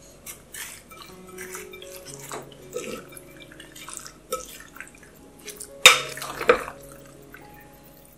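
Wooden spoon stirring penne pasta with grated cheese and sauce in a ceramic bowl: a run of soft scrapes, clicks and squishes, with two sharper knocks of the spoon against the bowl about six seconds in.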